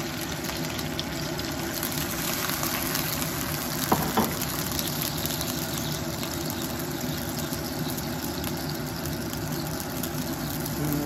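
Duck pieces, dried chillies and garlic frying in oil and liquid in a wok, a steady sizzle as cooking wine and seasoning are poured in. Two short clicks about four seconds in.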